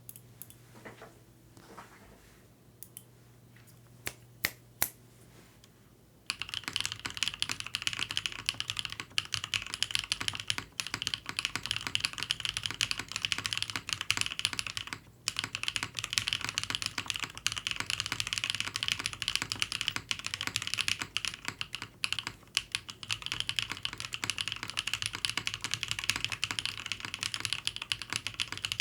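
Custom mechanical keyboard with BSUN Holy Panda tactile switches on a polycarbonate plate with GMK keycaps. A few scattered key clicks come first, then fast continuous typing from about six seconds in, with a brief pause around halfway.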